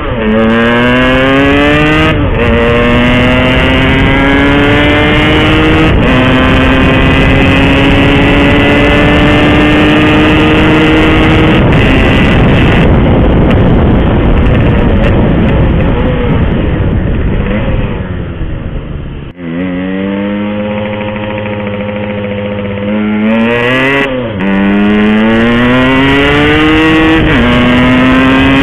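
Yamaha RX-King's single-cylinder two-stroke engine accelerating hard through the gears, its pitch climbing and dropping back at each upshift. About eighteen seconds in the throttle closes and the note falls away, then the engine pulls up through the gears again.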